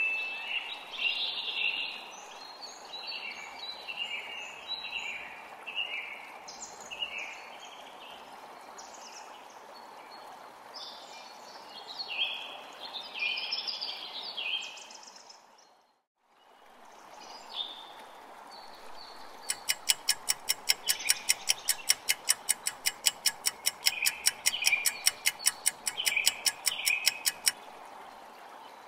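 Recorded birdsong ambience: many short chirps and tweets over a steady hiss. It fades out about halfway through and fades back in. In the second half a fast, even ticking like a clock runs for about eight seconds, about four ticks a second, over the birdsong.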